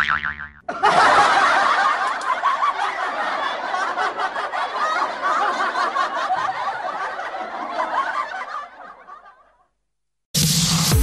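Canned laughter: people laughing, starting abruptly about a second in and fading away near the end.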